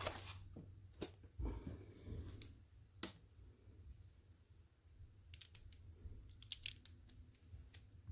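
Faint clicks and taps of a scale-model crane's counterweight plates being handled and lifted from a foam packaging tray, with a cluster of quick clicks past the middle.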